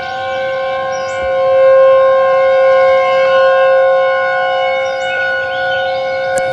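Warning siren sounding a steady chord of several tones held at one pitch without rising or falling; the lowest tone drops out shortly before the end.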